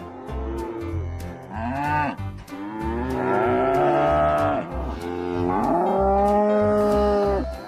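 Cattle mooing: a short call about one and a half seconds in, then two long drawn-out moos of about two seconds each. Background music with a steady beat plays underneath.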